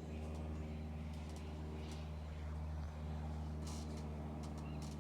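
Outdoor ambience: a steady low mechanical hum, like distant traffic or an engine, with a few short high chirps of small birds scattered through, a cluster of them near the end.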